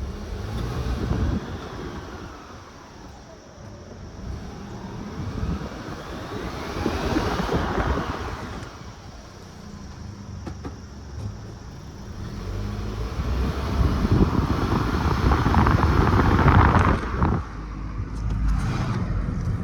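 2019 Toyota Corolla 2.0 driving and accelerating three times, its engine and drivetrain noise swelling with a whine that glides up and down in pitch. The grinding noise rises when driving forward, which the owner suspects is a bad transmission mount.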